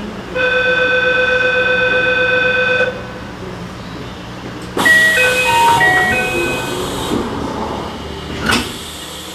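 Electronic signal tones at a train's station stop: a steady chime held for about two and a half seconds, then a short melody of stepped notes, and a single knock near the end.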